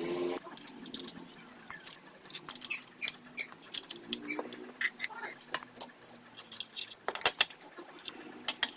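Light, irregular clicks and taps of metal tools and small parts being handled, several a second, with a few brief squeaks mixed in.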